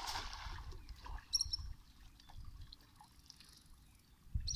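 Cast net landing on pond water: a brief splashing hiss in the first half second, followed by quieter water trickling. A bird chirps briefly about 1.4 s in and again near the end.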